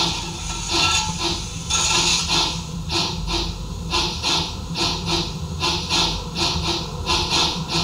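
Model steam locomotive's sound module chuffing in a steady rhythm of hissing exhaust beats, about two to three a second, from a Märklin gauge 1 G8.1 running with its wheels turning.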